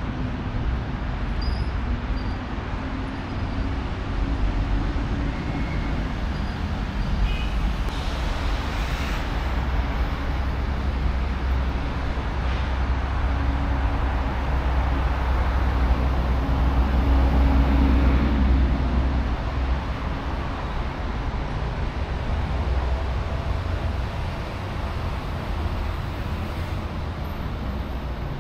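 City road traffic: a steady rumble of engines and tyres with a low engine hum, swelling louder for a few seconds a little past the middle.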